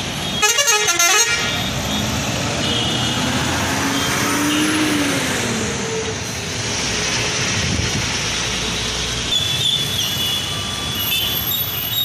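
Buses and traffic running close by, with a loud vehicle horn blast lasting under a second just after the start. An engine's pitch rises and falls midway through.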